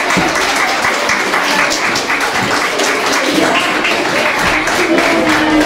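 Audience of children and parents applauding, a steady patter of many hands clapping. Voices join in over the second half.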